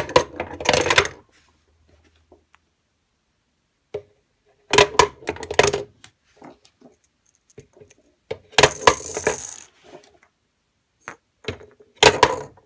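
Hollow plastic toy gumball capsules clattering and rattling down the plastic spiral chute of a Fisher-Price Gumball Play Machine, in four short bursts about four seconds apart.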